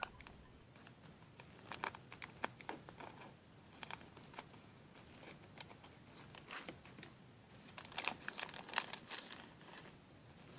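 A small pack of papers being opened by hand: irregular crinkling and tearing of its wrapper, with a busier spell of crackles near the end.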